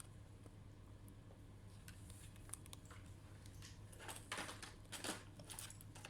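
Faint scratchy handling noises, a few light ticks and then a cluster of short rustling scrapes about four seconds in, over a steady low electrical hum.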